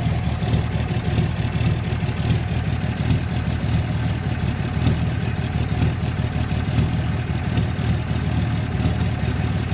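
2006 Dodge Cummins 5.9-litre inline-six turbo-diesel idling steadily, with sharp clattering knocks repeating several times a second over the low engine sound. The owner suspects the clatter comes from bad injectors.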